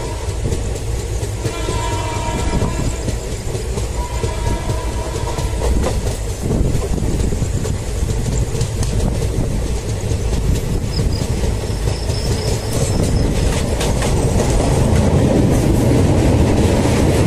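Indian Railways train horn sounding in short blasts in the first few seconds, then the train running over the rails with a steady rumble and wheel clickety-clack, growing louder near the end.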